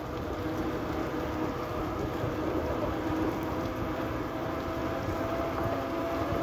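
Bicycle rolling fast on a wet paved path: steady tyre and wind rush with a faint hum whose pitch creeps slightly upward.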